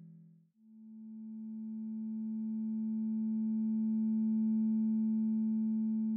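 Synthesized Sonic Pi drone from a data sonification. The previous tone fades out about half a second in, then a new low, steady tone with a few faint overtones swells in slowly and holds. The new tone voices the chlorides variable of the red-wine data, mapped to its spectral profile.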